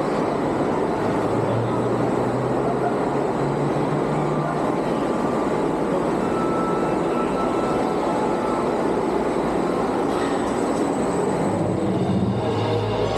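Steady rumble of a roller coaster train rolling along its track.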